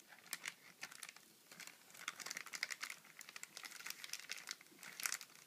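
Clear plastic zip-lock bag crinkling as fingers handle and flex it: a faint run of irregular soft crackles.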